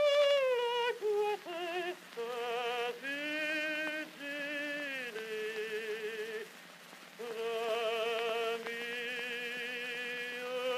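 A woman singing opera in chest voice, with a wide vibrato, on an early recording that sounds thin and has surface hiss. The first phrase falls in pitch, and there is a short break about six and a half seconds in before a long held note.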